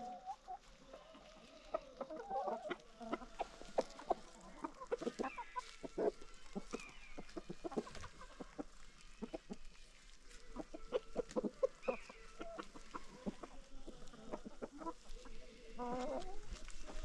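Free-range hens clucking softly and intermittently while foraging, with scattered short clicks between the calls. A louder call rises near the end.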